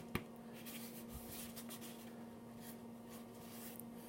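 Faint rubbing and scratching of hands handling the case's contents, with a single soft click just after the start, over a steady low electrical hum.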